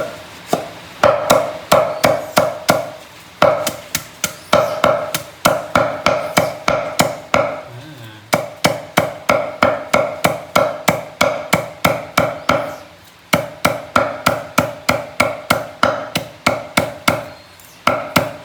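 Knife chopping vegetables on a cutting board, about three sharp strokes a second, each with a brief ringing knock, in runs broken by short pauses.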